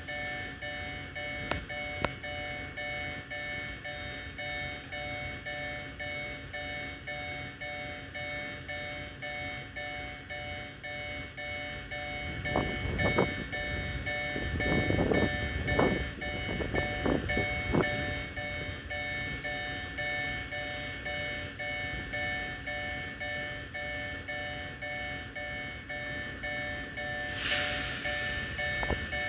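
Japanese railway level-crossing alarm ringing: a steady, repeating electronic bell. A few seconds past the middle, louder low rumbles and thumps come through it, and near the end there is a short burst of hiss.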